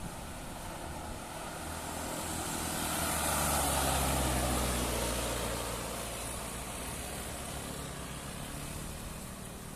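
A heavy road vehicle passing close by, its engine hum and tyre noise growing louder to a peak about four seconds in, then fading as it moves away.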